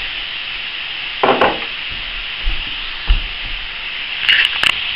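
Strips of beef sizzling steadily as they brown in hot oil in a frying pan, with a few light knocks and clicks.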